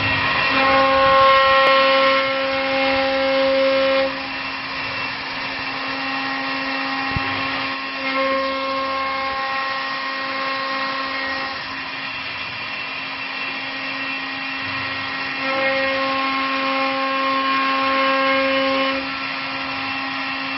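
Multi-spindle automatic CNC wood lathe running, with a steady motor whine as several wooden balusters turn under the cutters. A higher whine joins in three times, for three to four seconds each, and the sound is louder while it lasts.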